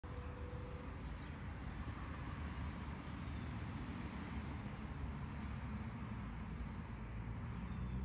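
Faint bird chirps, a few short high notes scattered through, over a steady low background rumble.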